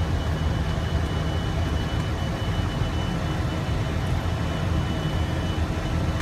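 Steady engine and airflow noise heard inside an aircraft in motion: a constant low rumble with a faint thin high tone above it.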